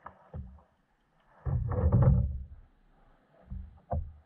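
Knocks and thumps against a plastic fishing kayak's hull, with a louder rush of noise lasting about a second in the middle and a sharp knock near the end.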